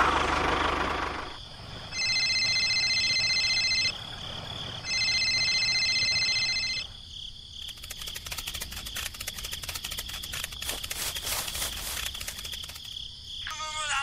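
The miniature tractor's engine sound fades out about a second in. Two steady, high ringing tones follow, each about two seconds long with a short gap between. Then crickets chirp rapidly.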